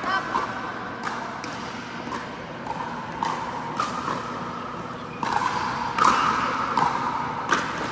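Pickleball rally: paddles hitting the plastic ball in a string of sharp pops about a second or so apart, the loudest hits near the end, echoing in a large indoor court.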